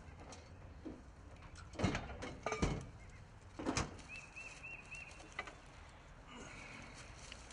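A few sharp knocks and clanks of work gear being handled, bunched in the first four seconds, then a small bird calling four quick, identical notes.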